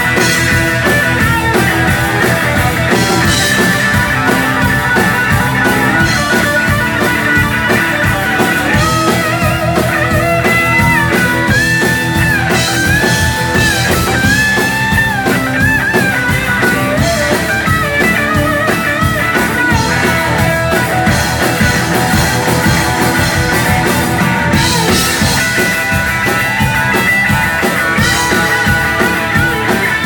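Live rock band playing loud: a Les Paul-style electric guitar plays a lead line full of bent notes over drums and bass, with cymbal crashes a few seconds in and again near the end.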